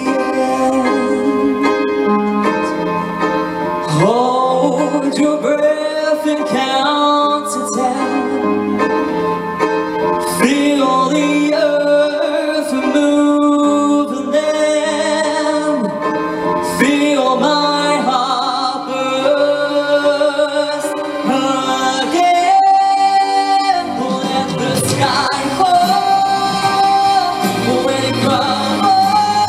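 A man singing a slow ballad live into a microphone, with held notes that waver in vibrato, over a musical accompaniment.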